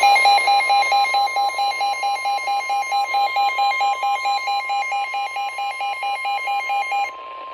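NOAA Weather Radio warning alarm tone, a steady 1050 Hz tone, with a weather radio receiver's alert beeper pulsing over it at about five or six beeps a second. The beeping stops about seven seconds in while the steady tone goes on. The tone signals an incoming weather warning.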